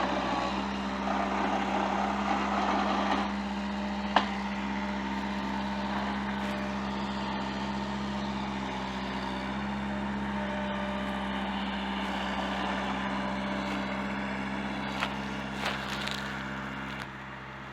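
Skid steer loader engine running steadily as it moves a hay bale, with a sharp knock about four seconds in and two lighter clicks near the end.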